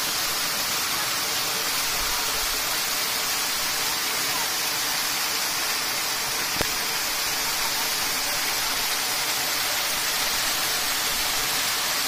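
Waterfall and the rocky cascades below it rushing, a steady, even roar of falling water. A single short click sounds about two-thirds of the way through.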